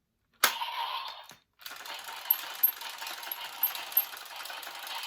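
Zenkaiger Geartlinger toy loaded with the Zenkai Gowon gear: a sharp plastic click about half a second in, then electronic sound effects from the toy's small speaker, turning into a dense, crackly stretch with many small clicks from about a second and a half in.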